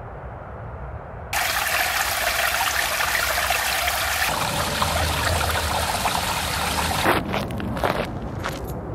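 Water rushing steadily down a shallow concrete channel, starting abruptly about a second in. Near the end it gives way to a few footsteps on a dry dirt path.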